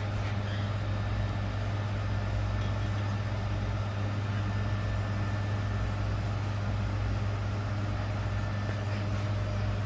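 Steady low electrical hum of a store refrigerator or display cooler, recorded close up.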